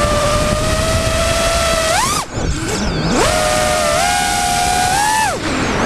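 FPV quadcopter's brushless motors and propellers whining over a rush of wind, heard from the camera on board. The pitch climbs, then drops away sharply about two seconds in as the throttle is cut and surges back a second later. It climbs again and drops away once more near the end.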